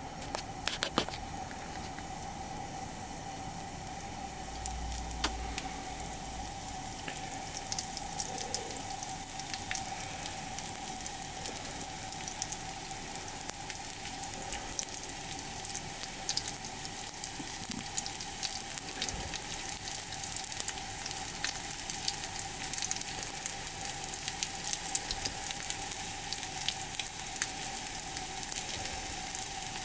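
Panko-breaded potato salad ham cutlets shallow-frying in oil in a frying pan, the oil sizzling and crackling with many fine pops that grow busier after the first several seconds. A steady hum runs underneath, and there are a couple of light knocks near the start.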